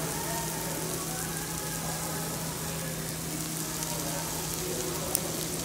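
Steak sizzling on a hot stone grill plate, with scattered fine crackles over a steady low hum and one sharp click about five seconds in.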